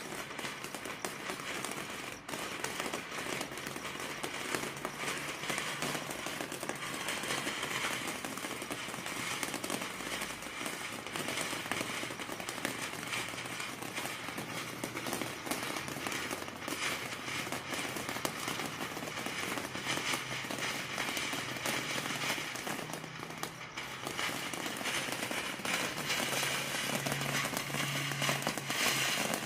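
Cannon Brand Peach Flowers ground fountain firework burning steadily, a continuous hiss of spraying sparks with no crackling effect.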